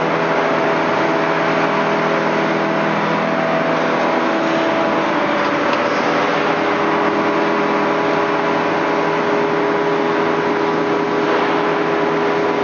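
BOMAR metal-cutting band saw running steadily: a motor hum with a hiss over it.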